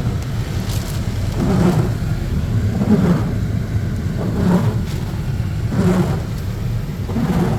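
Inside a moving truck in a heavy storm: a steady low road and engine rumble, with a swish that repeats about every second and a half.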